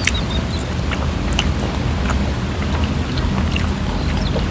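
Eating sounds from grilled chicken being eaten by hand: scattered sharp chewing and lip-smacking clicks over a steady low rumble of wind on the microphone, with a few bird chirps near the start.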